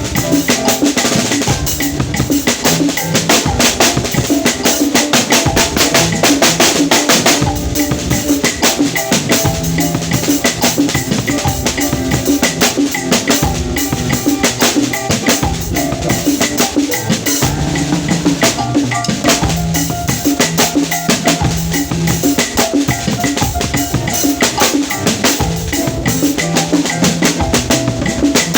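Drum kit played continuously, with bass drum, snare and rimshots in a dense, steady pattern.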